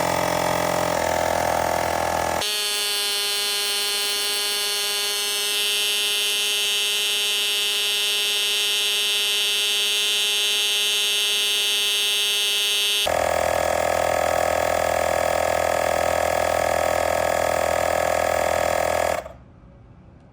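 HOTO portable battery-powered air compressor running steadily as it inflates a motorcycle's rear tyre, a buzzing drone whose tone shifts a couple of times. It cuts off suddenly near the end, switching itself off on reaching the set pressure of about 36.5 PSI.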